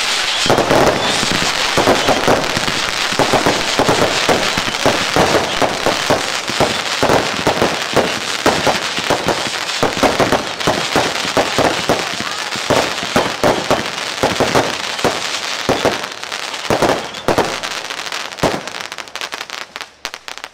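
Class 2 consumer fireworks going off in quick succession: a dense, continuous crackling with many sharp bangs, several a second, from bursting crackling stars.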